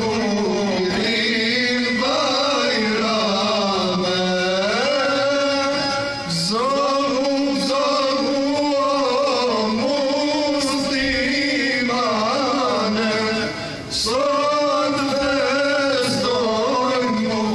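Men singing an ilahi, an Islamic devotional hymn, into microphones, in a slow, ornamented melody with long held notes. The singing breaks off briefly twice, about six seconds in and near the end.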